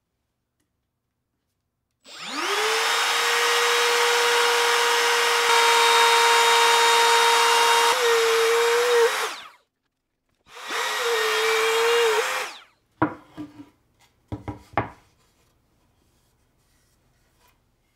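Cordless brushless trim router spinning up and cutting plywood, its high whine sagging and wavering in pitch as the bit takes load, then stopping. A second, shorter cut follows. A few sharp wooden knocks come after as the boards are handled.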